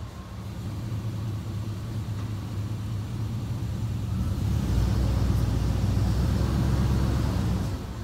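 Lifted Chevrolet pickup truck's engine running steadily at low speed as the truck creeps forward. It gets louder about halfway through and drops away shortly before the end.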